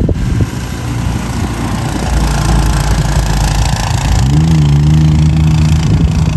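Utility truck driving through long grass, its engine running over a steady hiss; about four seconds in the engine note rises and then holds steady.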